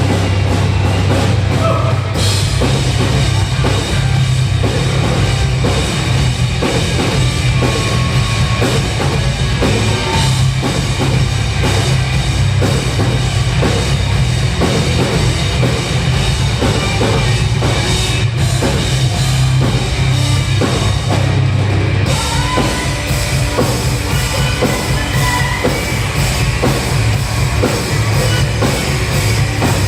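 Live rock band playing an instrumental passage, loud and dense, with a drum kit driving it over a heavy bass; the sound grows brighter about two seconds in.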